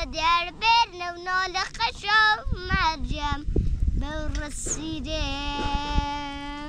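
A young boy singing a folk song unaccompanied, his voice rising and falling through short phrases, then holding one long steady note from about five seconds in.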